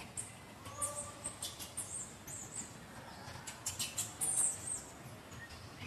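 A rapid, irregular run of short, very high-pitched animal chirps and squeaks, some sliding in pitch, starting just after the beginning, loudest a little past the middle and dying away near the end.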